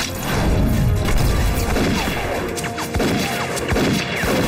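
Dramatic film score mixed with battle sound effects: sharp hits and crashes follow one another quickly throughout.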